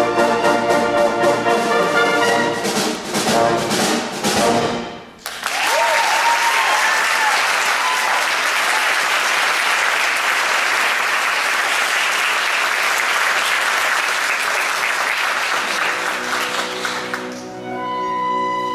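Orchestra with brass ends a lively number with a run of rhythmic accented chords, cut off sharply about five seconds in. The audience then applauds, with a few whoops early on, for about twelve seconds, and near the end the orchestra starts up again with sustained notes.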